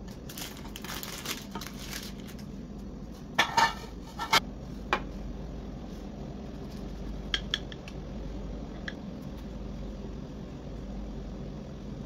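Soft scraping, then a ribbed aluminium loaf pan clattering several times, loudest about three and a half seconds in, as it is lifted off a turned-out loaf and set down. A few light clicks of a knife against the plate follow as the bread is sliced.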